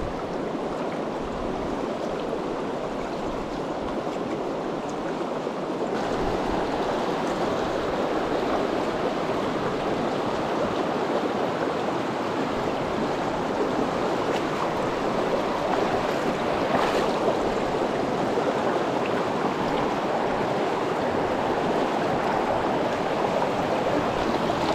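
Rushing water of a shallow mountain stream pouring over and around boulders, a steady noise that grows a little louder about six seconds in.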